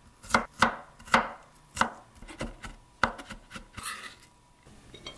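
Knife mincing garlic on a wooden cutting board: a dozen or so quick, uneven chops, the loudest in the first two seconds, then a brief scrape of the blade across the board near the end as the minced garlic is gathered up.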